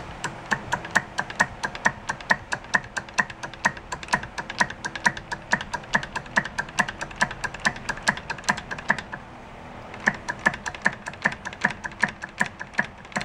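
Socket ratchet clicking rapidly and evenly as it is worked back and forth on the alternator rotor bolt of a seized 1971 Honda CB350 engine, the pawl ticking on each return stroke; the clicks pause for about a second near the nine-second mark, then resume.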